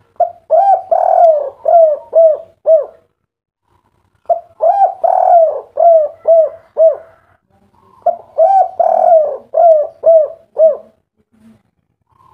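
Spotted dove (derkuku/tekukur) cooing its song three times, each phrase a quick run of coos with a longer note near the start and a few short notes at the end. This is the 'kuk 3' song type, which ends on three short 'kuk' notes.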